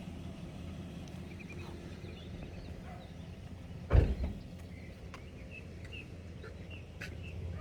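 A steady low hum, with a single heavy thump about four seconds in and a few faint bird chirps.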